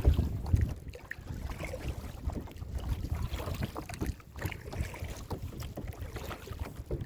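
Kayak under way on open water, with wind buffeting the microphone in an uneven low rumble.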